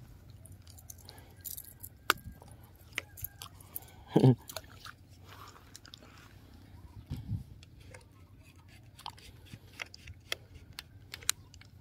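Scattered sharp clicks and rustles of gloved hands handling a baitcasting reel and fishing rod, with a louder dull thud about four seconds in.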